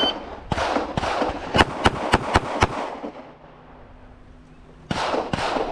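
Handgun shots fired in rapid succession: a quick string of five about four a second, a Bill drill drawn from the holster, with more gunshots ringing around the range before it and a pair near the end.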